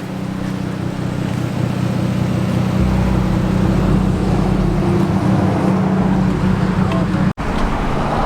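A car engine running steadily with a low drone, growing louder over the first few seconds, with a brief cut-out near the end.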